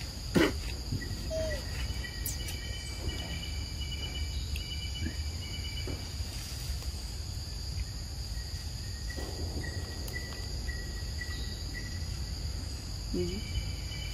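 Outdoor ambience dominated by a steady high-pitched insect drone, with rows of short repeated chirps over it. A sharp knock about half a second in, and a brief call near the end.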